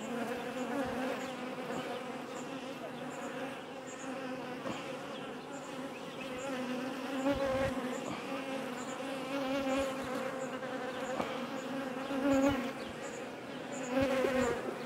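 Honeybee colony humming steadily in an open hive, with a few light knocks of a metal hive tool against the wooden frames.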